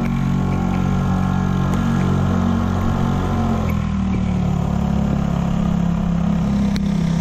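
Outboard motor driving an inflatable dinghy, running steadily under way. Its note changes about halfway through, then holds steady.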